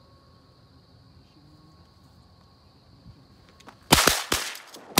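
Duck hunters' shotguns firing a quick volley of about three shots, starting about four seconds in, each shot followed by a short fading tail. Before the shots, insects buzz steadily and faintly.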